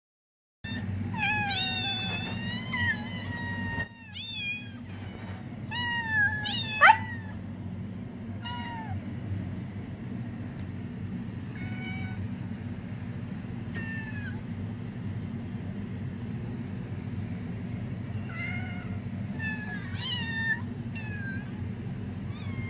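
Several street cats meowing, many calls overlapping in the first several seconds, with one sharp rising meow, the loudest, about seven seconds in. After that the meows are scattered, over a steady low hum.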